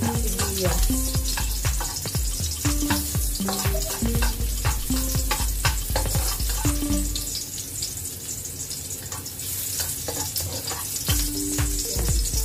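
Minced garlic sizzling in hot oil in a wok as it browns, stirred and scraped with a spatula. Background music with bass notes plays along, dropping out for a few seconds in the middle.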